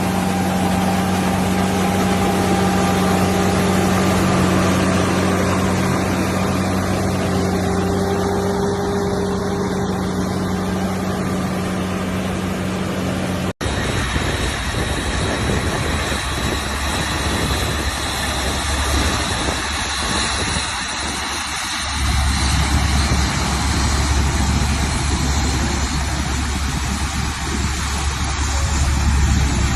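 Heavy diesel engines of farm machinery running steadily, with a steady low hum. About halfway through there is an abrupt cut to a different machine, whose engine note deepens and grows louder near the end.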